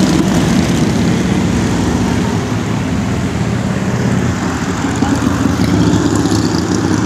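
Steady highway traffic: engines and tyre noise of passing cars and a pickup truck.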